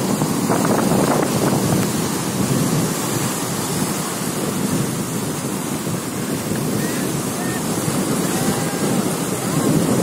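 Sea waves breaking and washing over shoreline rocks, with wind buffeting the microphone. The surf swells loudest in the first couple of seconds and again near the end.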